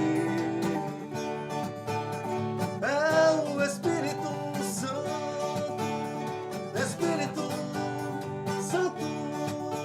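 Live acoustic guitar accompaniment to a song, plucked and strummed, with a voice briefly singing a few held notes a couple of times.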